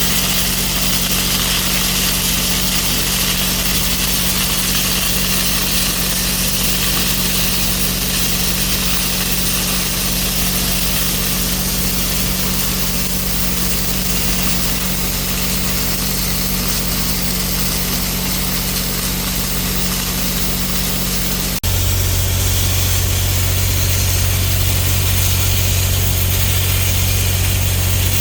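Steady machine noise from metal repair work: a low engine-like hum under a continuous hiss. About three-quarters of the way through, the hum shifts abruptly lower and louder.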